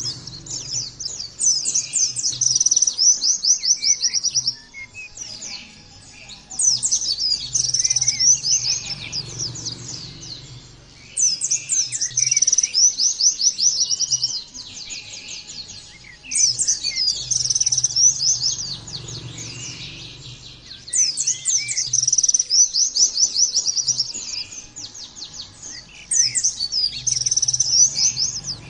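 White-eye (pleci) singing in fast, high, twittering phrases of three to four seconds each. There are about six phrases, with short pauses between them.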